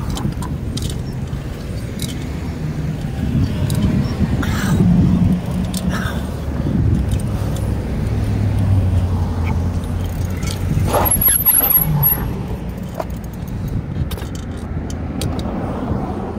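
Road traffic at a city intersection heard from a bicycle: cars passing close by over a steady low rumble, with scattered light rattling clicks.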